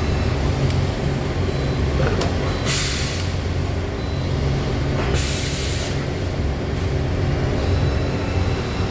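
Okuma horizontal machining center running a bore-probing cycle: a steady machine hum with a few faint clicks, and two short bursts of air hiss, about three seconds and five seconds in.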